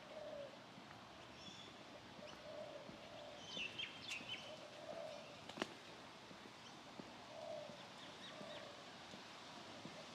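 Faint bird calls: a low call repeated every one to two seconds, with a few higher chirps about four seconds in. One sharp click just after the middle.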